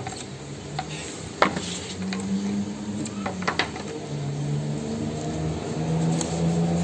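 Stiff MDF wall plaques being shifted and knocked against each other in a styrofoam box: scattered clicks and knocks, the sharpest about one and a half seconds in and a quick cluster a little after three seconds. A low steady hum runs underneath from about two seconds in.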